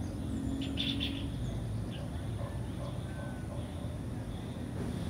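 Small birds chirping: a quick cluster of high chirps about a second in, then a few fainter calls, over a low steady rumble of outdoor background noise.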